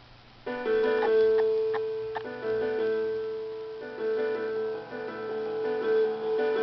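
Piano music starting about half a second in, with held notes that change every second or so.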